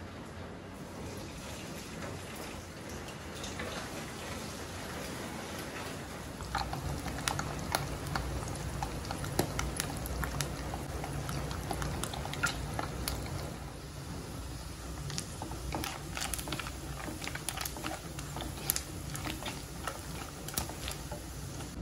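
Oil sizzling in a wok as shredded ingredients fry, getting louder about six seconds in, with scattered crackles and pops.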